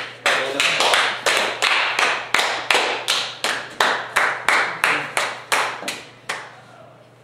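Hand clapping in a steady rhythm, about three sharp claps a second, stopping about six seconds in.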